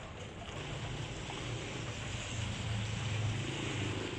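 Boots sloshing through ankle-deep flood water, over a steady low hum that comes in about half a second in and grows louder.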